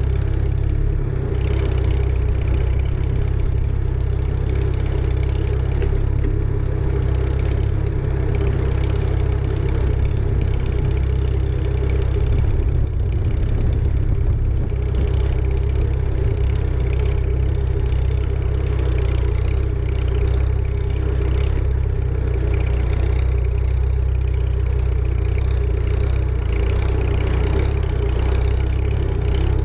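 Farmall H tractor's four-cylinder engine running steadily close to the microphone as the tractor is driven slowly.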